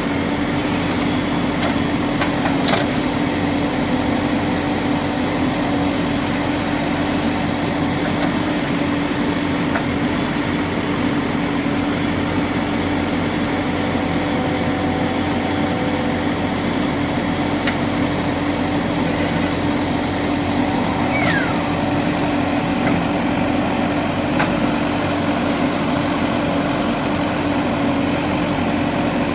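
JCB 3DX backhoe loader's diesel engine running steadily, holding one even pitch.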